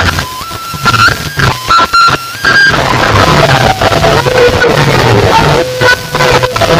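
Loud music played through a large DJ sound-box rig: a heavy bass beat under a single melody line that steps between notes, moving to lower notes about three seconds in.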